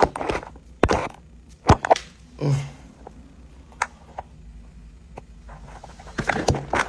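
Handling noise from a smartphone being moved about: a few separate sharp knocks and clicks over a low hum.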